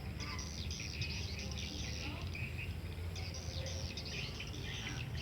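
Small birds chirping over and over, many quick high twittering notes, over a low steady hum.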